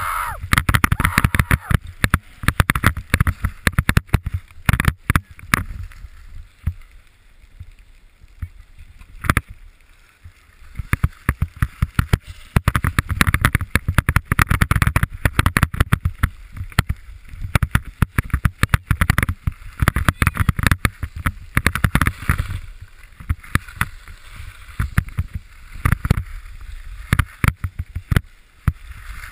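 Skis scraping and chattering over packed snow while skiing downhill, with wind rumbling on a helmet-mounted camera. The noise comes in uneven surges full of sharp scrapes, with quieter stretches about a quarter of the way in and again near the end.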